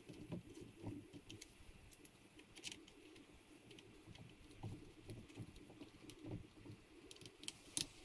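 Faint handling noise from hands fitting a riflescope in Leupold quick-release scope rings: scattered small clicks and taps, with one sharper click near the end.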